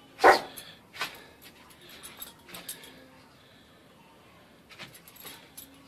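A Yorkshire terrier gives a short, sharp yap near the start and another about a second in. The metal tag on its harness then jingles lightly in scattered clicks as it moves about.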